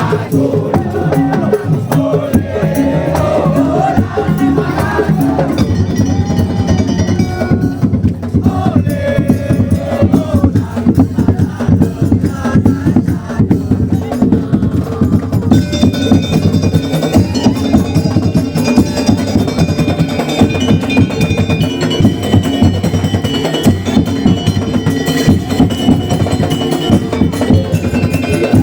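Madurese daul ensemble playing: fast, dense drumming with knocking wood-block-like strokes under a melody. A higher, fuller melodic line comes in a little past halfway.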